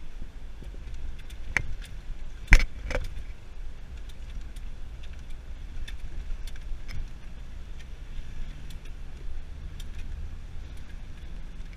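Off-road vehicle driving over a rough unmade track: a steady low engine and tyre rumble with loose rattles and knocks from the body, the loudest knock about two and a half seconds in.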